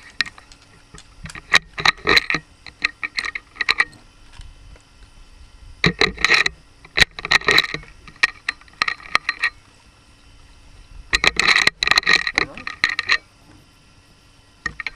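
Bolt of a .375 bolt-action rifle being worked to unload it: sharp metallic clicks and clatter in several short bursts with pauses between.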